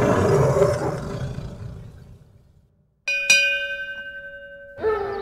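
Title sound effects: a loud roar fades out over about two seconds, then after a short silence a single ringing, bell-like strike sounds about three seconds in. Music begins near the end.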